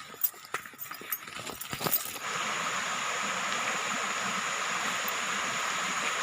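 Scattered clicks and knocks for about two seconds, then the steady rush of flowing stream water.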